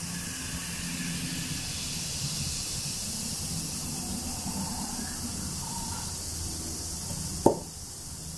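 Baking soda and vinegar fizzing in a bowl, a steady hiss over a low hum. There is one sharp knock about seven and a half seconds in.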